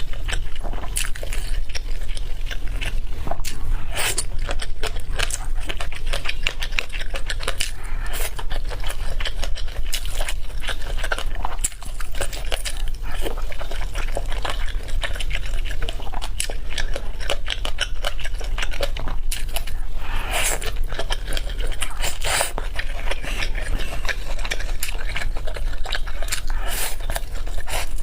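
Close-miked eating sounds: chewing and biting of food, a dense run of small irregular clicks and crunches, over a steady low hum.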